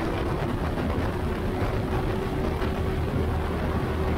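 Turbocharged EP912STi (Rotax 912-based) engine and two-blade propeller of a RANS S-7S bushplane running at steady power as the plane rolls on grass, with a steady hum over a low rumble.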